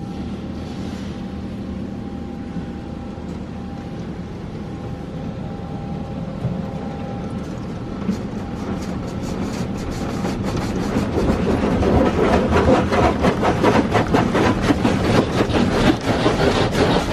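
Automatic tunnel car wash equipment heard from inside the car: a steady machine rumble that grows louder about halfway through, joined by rapid pattering of water spray on the roof and glass.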